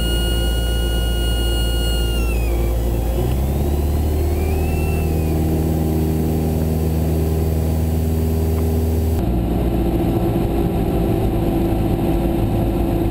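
Cessna 172 SP stall warning horn sounding a steady tone during slow flight, then dropping in pitch and dying away a couple of seconds in, with one brief chirp shortly after. Under it is the cabin drone of the Lycoming four-cylinder engine, whose note rises about three seconds in and changes abruptly about nine seconds in.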